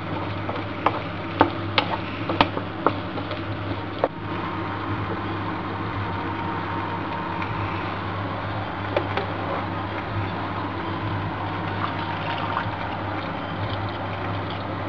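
A wooden spatula stirs ground beef and vegetables in a frying pan, knocking and scraping against the pan several times in the first four seconds. After that the pan gives a steady sizzling hiss as the mince fries.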